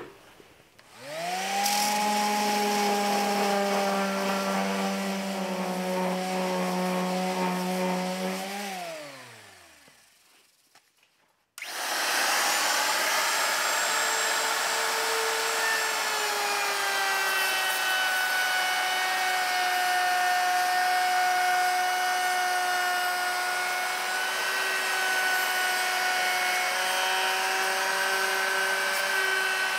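A power-tool motor spins up, runs steadily for about seven seconds and winds down to a stop. After a brief silence, a handheld router runs steadily while rounding over the edge of a wooden beam, its pitch shifting slightly now and then as it cuts.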